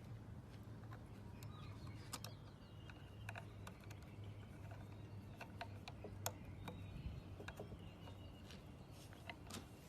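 Scattered light clicks and taps of small deadbolt parts being handled and fitted, over a low steady hum.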